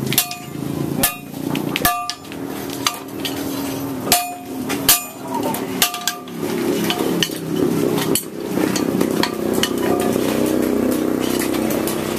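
Hand-forging of a leaf-spring bolo blade: a hammer strikes the hot blade on a steel anvil with a short metallic ring on each blow. Heavy blows land about once a second for the first six seconds, then lighter, quicker taps follow.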